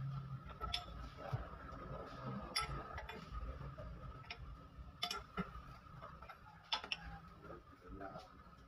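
Sharp metal clicks and taps of hand tools against a Toyota Innova's steel lower arm and freshly fitted ball joint, several scattered a second or two apart, over a faint steady high hum.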